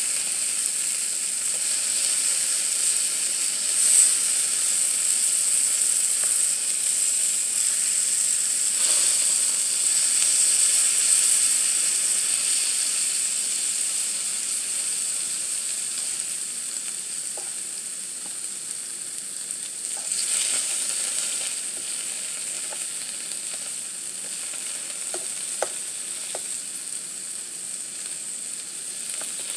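Shrimp, fish and onion slices sizzling on a hot grill pan: a steady high hiss that eases off through the second half and swells again briefly around the twenty-second mark. Near the end come a few light clicks of a metal fork against the food and pan.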